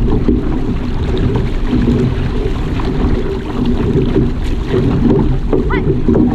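Water rushing and splashing along a paddled outrigger canoe's hull and float, with wind buffeting the microphone.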